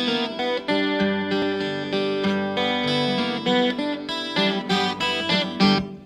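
Guitar playing an instrumental intro of separate notes, which die away just before the end.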